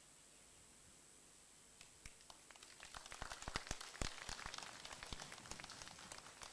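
Scattered applause from a small crowd, faint. It starts with a few separate claps about two seconds in, grows denser and louder through the middle, then thins out.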